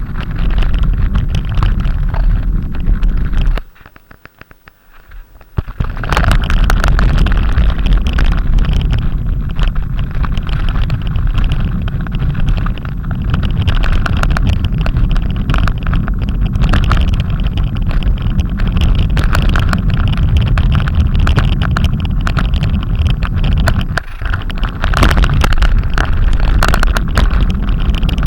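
Strong wind buffeting the microphone: a loud, rough low rumble that drops away for about two seconds a few seconds in, then comes back.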